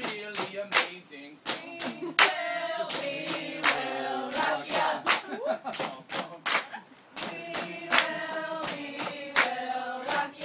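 A group of people singing a song about rakija together, clapping hands in a steady rhythm. The claps carry on through a short pause in the singing about halfway through.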